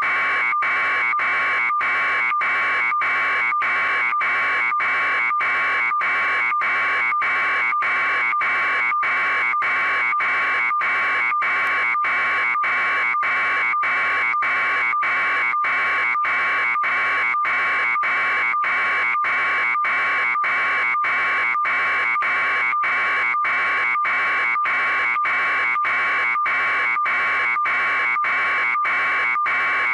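Loud electronic buzzing tone that cuts out briefly about twice a second in a steady, even rhythm, with no change throughout.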